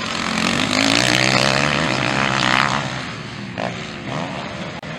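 Motocross bike engine revving hard as it rides close by. It swells over the first second, stays loud until nearly three seconds in, then fades as it moves away.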